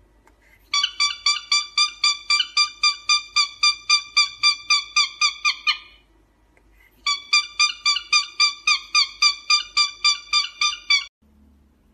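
Cockatiel calling in two long runs of rapid, evenly spaced chirps, about four or five a second. The first run lasts about five seconds and the second, after a pause of about a second, about four seconds.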